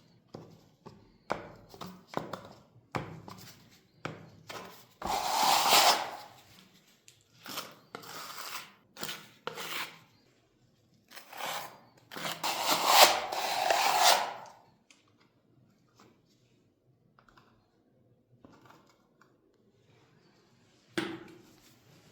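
Hand work on electrical back boxes: scattered taps and knocks, and two longer scraping passes, the second of about three seconds, then a single sharp knock near the end.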